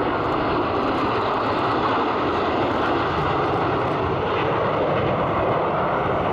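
Jet engines of a four-ship formation of F-16 fighters passing overhead, a steady loud roar.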